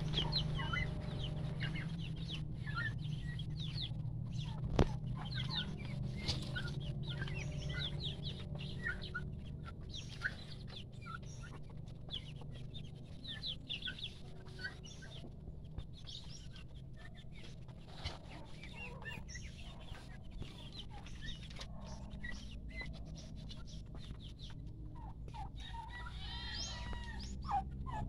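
Native chickens with many chicks, the chicks peeping in a steady scatter of short high cheeps. There is one sharp knock about five seconds in, and a louder bird call near the end.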